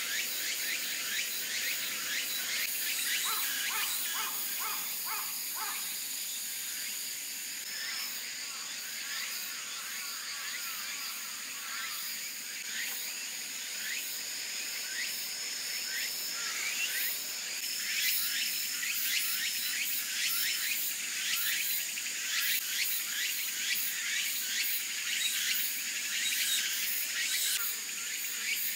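Insects trilling steadily in the woods, a continuous high tone, with scattered light ticks throughout.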